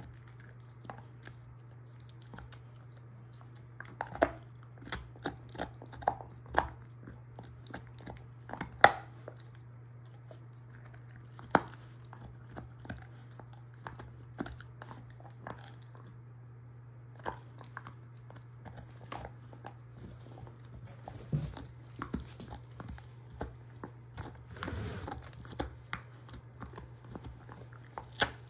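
German shorthaired pointer gnawing a beef soup bone: irregular cracks and crunches of teeth on bone, the loudest about nine seconds in and another just before twelve. A steady low hum runs underneath.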